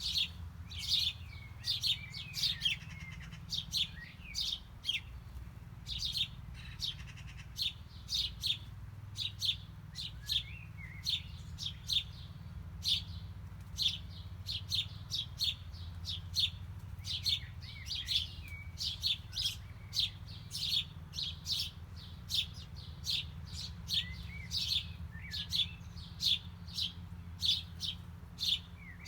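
Small birds chirping: a steady stream of short, sharp, high chirps, about two a second, some with quick downward slurs, over a steady low rumble.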